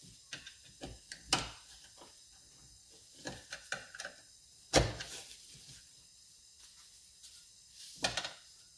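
Irregular clicks and knocks from the plastic clutch cover and chain-brake parts of a Husqvarna 455 chainsaw being handled, turned and set down on the workbench. The loudest knock comes about five seconds in, and there is a short cluster of knocks near the end.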